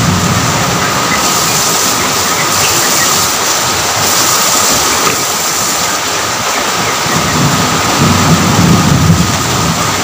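Steady heavy rain, a dense even hiss, with a low rolling rumble of thunder that swells about eight seconds in.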